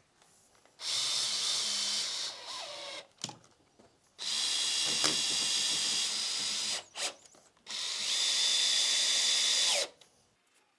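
Power drill-driver running in three bursts of about two seconds each, with a steady high whine, driving screws to fix a wooden frame in place.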